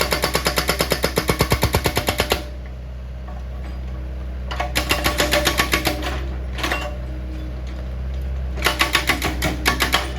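Excavator-mounted hydraulic breaker hammering rock in rapid, even blows, about five or six a second. It stops about two seconds in and starts again in short runs near the middle and near the end, over the machine's steady low engine hum.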